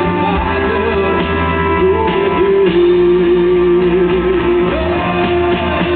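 Pop-rock band playing live in an arena, heard from the audience: drums, guitar and keyboards under a held melody line that slides between notes.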